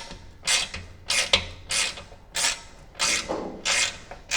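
Hand ratchet with a 10 mm socket being worked back and forth on a rusty deck-cover bolt, giving a short burst of ratchet clicking on each return stroke, a little under two strokes a second.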